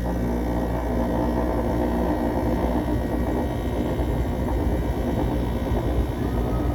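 1993 Carrier Weathermaker window air conditioner running: a steady rush of fan noise over a low motor hum. The fan sounds like it could use some oil, in the owner's judgement.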